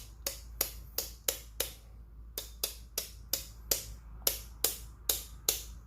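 Millwright hand grinder's stepped grind adjustment clicking as it is turned clockwise toward the zero setting. Each sharp click is one step finer, about three a second, with a short pause about two seconds in.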